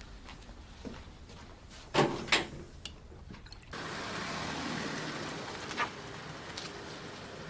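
Two loud sharp knocks in quick succession about two seconds in, then the background switches suddenly to a steady outdoor hum of distant traffic with a faint click or two.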